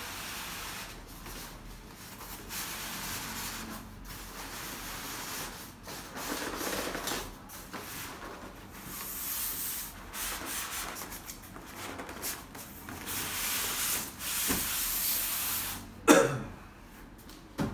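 Cardboard box lid being worked loose and pulled off foam packaging: uneven bursts of cardboard rubbing and scraping against foam. There is a sharp, loud knock about sixteen seconds in and a smaller one near the end.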